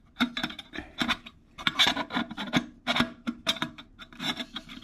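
Metal burner unit of a Firemaple Polaris camping stove being twisted and wiggled inside its pot: an irregular run of scrapes and clicks, metal on metal. It is a tight fit, with the pot's protruding rivets catching the burner.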